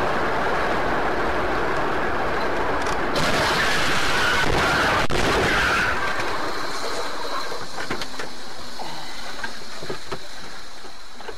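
Steady road and wind noise inside a car moving at highway speed. It swells in the middle as the car runs into a cloud of dust off the road, with a single sharp knock about five seconds in, then settles lower with scattered small clicks.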